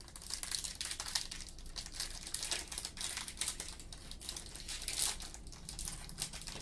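Foil wrappers of Panini Flux basketball card packs crinkling and tearing as gloved hands open and handle them. The sound is a continuous, uneven crackle.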